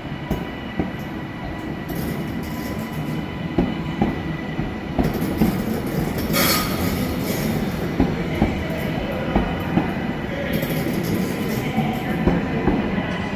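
Class 397 'Nova 2' electric multiple unit running along the platform: steady rumble of the wheels with repeated clicks over rail joints, and a thin, steady high whine.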